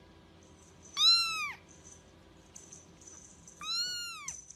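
Young grey kitten mewing twice: two high calls about two and a half seconds apart, each rising and then falling in pitch.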